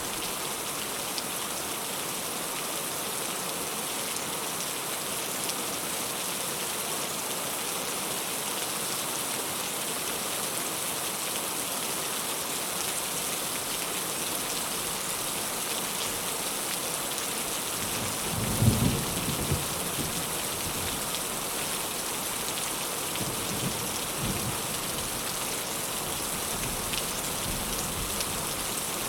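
Heavy rain falling in a steady hiss, with a low thunder rumble breaking in about two-thirds of the way through and fainter rumbles a few seconds later.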